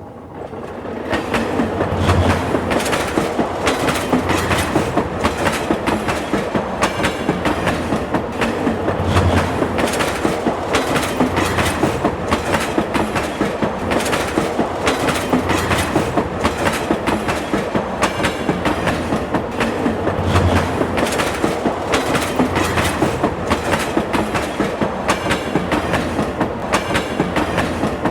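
A train passing through, its wheels clattering over the rail joints in a fast, steady clickety-clack. It builds up in the first second or two and fades away near the end.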